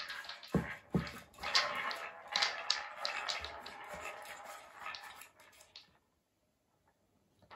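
Wooden balls clattering round the tracks of a three-tier wooden cat ball-track toy as a dog paws at it, with two dull thumps in the first second. The clatter stops about six seconds in.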